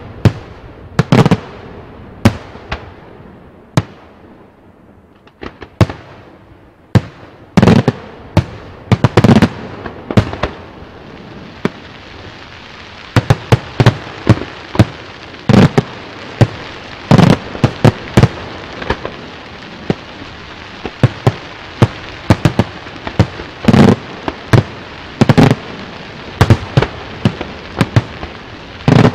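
Daytime fireworks: aerial shells bursting in loud, sharp bangs, some single and some in quick strings. There is a short lull about four to six seconds in, and the reports come thicker and almost without a break through the second half.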